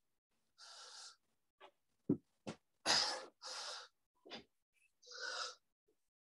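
Heavy breathing of a person exerting through press-ups: several short, hard breaths, with a few brief knocks in between, the loudest about two seconds in. The sound drops out to silence between them.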